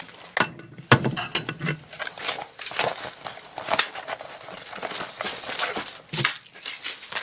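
Irregular rustling and crackling, with many sharp clicks and knocks at uneven spacing.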